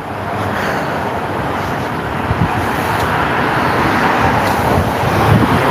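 Road traffic: a steady rush of passing cars that slowly grows louder.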